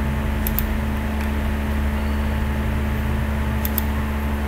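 Steady electrical hum with a hiss, like a fan or air conditioner running. Two quick double clicks of a computer mouse come about half a second in and again near the end.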